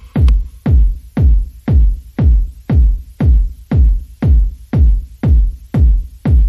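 Electronic background music with a heavy, steady kick-drum beat, about two beats a second, and light percussion clicks between the beats.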